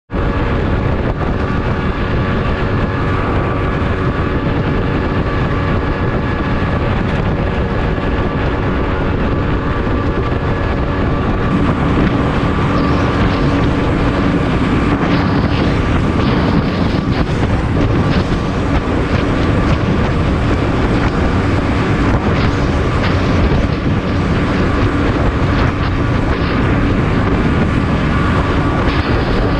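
Outboard motor on an aluminium racing dinghy running hard at a steady pitch, heard from on board, with wind buffeting the microphone and water rushing past the hull.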